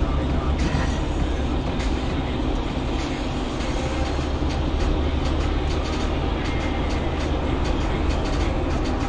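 Steady low rumble of a car driving, road and engine noise heard from inside the cabin, with a scatter of faint ticks.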